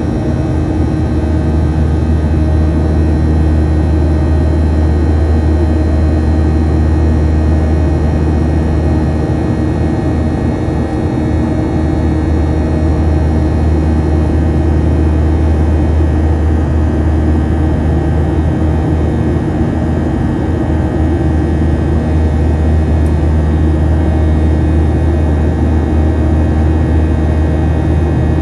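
Boeing 737-800's CFM56-7B turbofan engines running steadily during the climb, heard inside the cabin: a loud, even drone with a deep hum and several steady whining tones over it.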